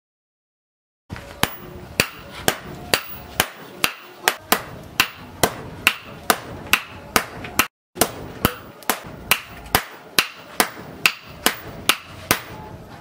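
Sledgehammer and hand hammer striking a red-hot steel bar on an anvil in turn, a steady run of sharp metallic blows a little over two a second. It starts about a second in and breaks off briefly a little past halfway.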